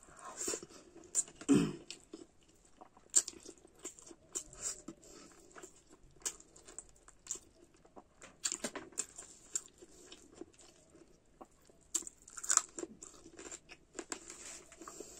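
Close chewing of a mouthful of food eaten by hand, heard as many short, irregular clicks, with a louder thump about a second and a half in.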